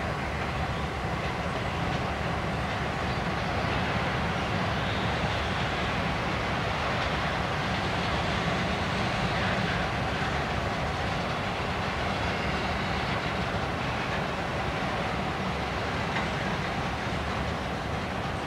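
Freight train of open hopper cars rolling past, with steady steel-wheel-on-rail noise.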